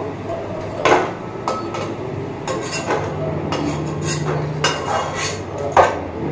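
Metal spatula stirring in a metal kadai, knocking and scraping against the pan in a string of sharp clinks, the loudest about a second in and near the end.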